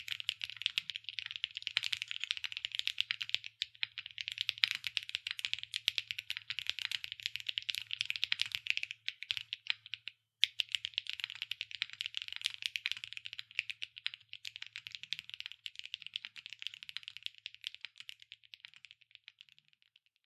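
Fast, continuous typing on a QK75N mechanical keyboard with Kailh BCP linear switches, an aluminium plate and PBT keycaps: a dense stream of keystroke clacks, with a brief pause about ten seconds in.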